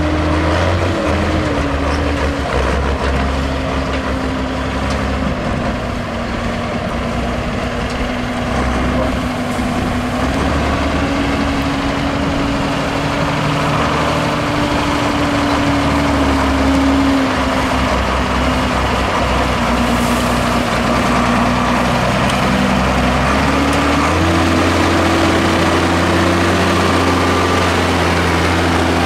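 Diesel engine of a 6x6 Mercedes-Benz trial truck running at low revs as it crawls over rough ground, its note sagging and rising with the load and stepping up to higher revs near the end.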